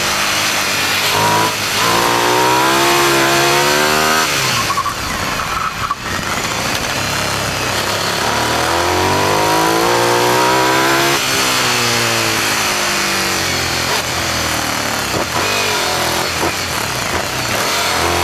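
Sport motorcycle engine heard from on the bike, revving up hard in rising sweeps and dropping back each time the throttle closes for a bend, several times over. A steady rush of wind noise runs underneath.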